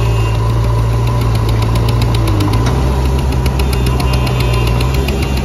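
Diesel engine of a JCB 3DX backhoe loader running hard under load as its front bucket pushes a stuck loaded truck, with a fast ticking clatter over a steady low drone. The engine note steps up a little about two and a half seconds in.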